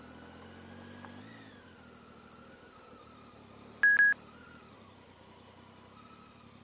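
One short, loud electronic beep about four seconds in, over a faint low hum.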